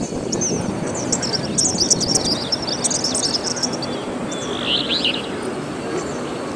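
Small birds chirping in quick, high twittering runs, with one more chirp near the end, over a steady low background noise of the street.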